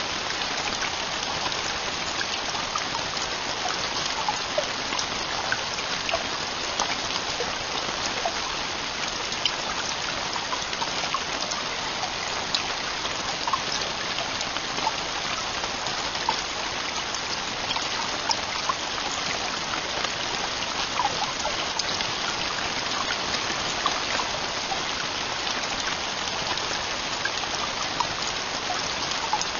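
Heavy rain falling steadily on a camping tent roof: a constant even hiss with many individual drops ticking through it.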